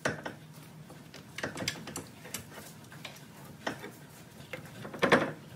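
Scattered metal clicks and knocks as the 2016 Nissan Versa's front steering knuckle and hub assembly is worked onto the lower ball joint stud. A louder cluster of knocks comes about five seconds in, over a faint low hum.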